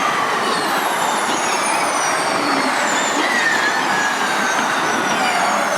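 Formula E electric race cars running past: high-pitched electric motor and transmission whine over tyre and road noise, several whines falling in pitch.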